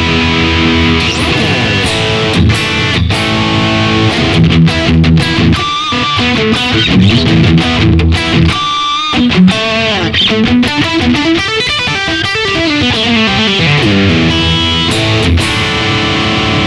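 Squier Affinity Stratocaster played through a Yamaha THR10X amp on a thick, distorted setting: sustained notes and chords with string bends and slides, briefly broken twice around the middle.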